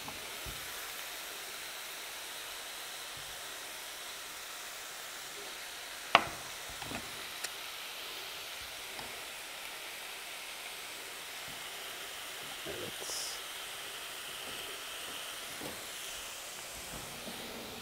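Strips of turkey breast frying in a hot pan, a steady, even sizzle. One sharp knock comes about six seconds in, with a few faint taps later.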